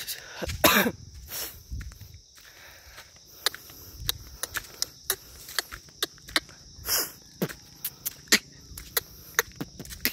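Footsteps on a dry, leaf-strewn dirt trail: irregular sharp steps, a few louder bursts near the start and one about midway, over a steady high-pitched insect buzz.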